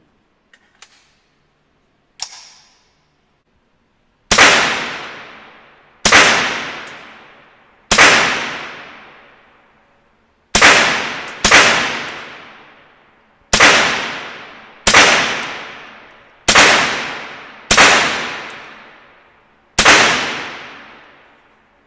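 Smith & Wesson M&P 15-22 semi-automatic .22 LR rifle fired ten times at an uneven pace, each shot a sharp crack with a long echoing decay. A lighter click comes about two seconds in, before the first shot.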